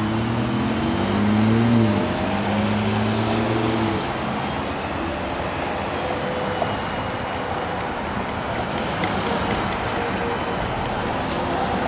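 Road traffic at a busy intersection. In the first few seconds one vehicle's engine pulls away: its pitch rises, drops back about two seconds in, and fades out about four seconds in. A steady wash of passing cars and tyre noise runs underneath throughout.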